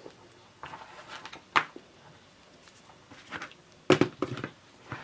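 Soft handling sounds of stripped copper wire ends being twisted together by hand: light rustling with a few sharp clicks, the loudest a little before four seconds in.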